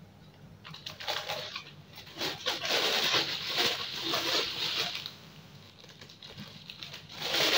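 Crinkling and rustling of a thin clear plastic bag as kerupuk crackers are taken out of it. It comes in a long spell of crackling through the middle, then a short loud burst near the end.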